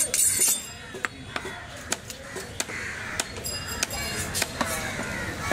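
A large knife chopping and cutting fish on a wooden log chopping block: a run of sharp, irregular knocks, with background chatter.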